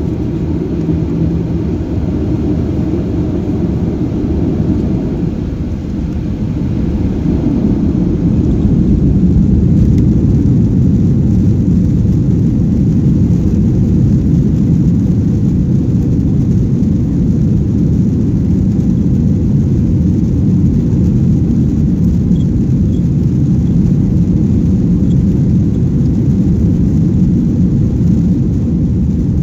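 Boeing 737's twin turbofan engines heard from inside the cabin over the wing, spooling up to takeoff power. The sound builds over a few seconds about a fifth of the way in, then settles into a steady, loud, low rumble of engine and runway noise as the takeoff roll gets under way.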